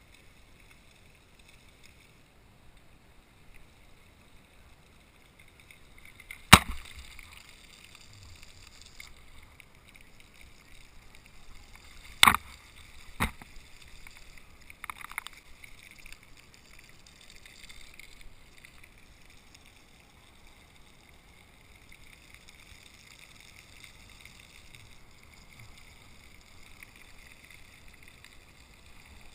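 Bicycle rolling over wet concrete, a steady hiss of tyre and riding noise. There are three sharp knocks, one about six seconds in and two close together about twelve and thirteen seconds in, followed by a softer rattle.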